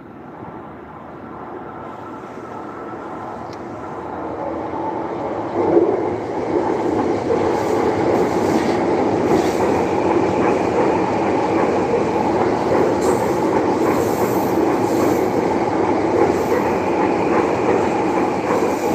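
A train approaching, growing louder over the first six seconds or so, then passing close by with steady wheel-on-rail noise.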